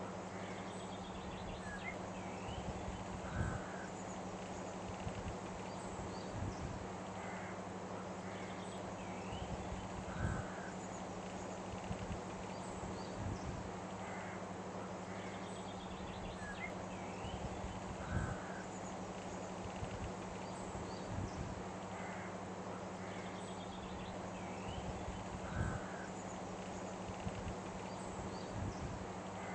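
Outdoor nature ambience with bird calls over a steady hiss and low hum, the same pattern of calls repeating about every seven to eight seconds like a loop.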